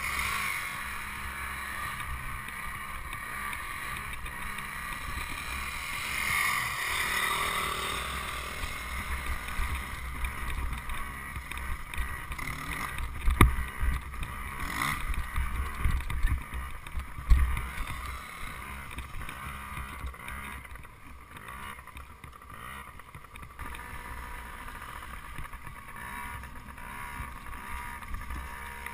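Dirt bike engine running, muffled, with low wind rumble and knocks from the bike jolting over rough trail. Two sharp loud knocks come about 13 and 17 seconds in.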